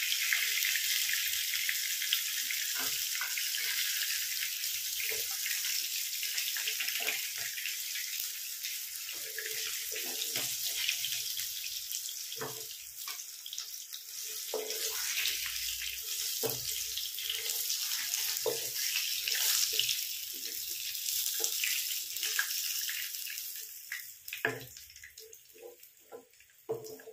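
Pomfret pieces shallow-frying in oil in a nonstick pan: a steady hissing sizzle, with light taps and scrapes of a wooden spatula as the fried fish is lifted out. The sizzle dies down over the last few seconds.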